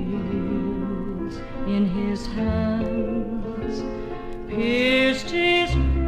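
Gospel music from a 1968 LP record: held notes with vibrato over accompaniment, swelling louder about four and a half seconds in.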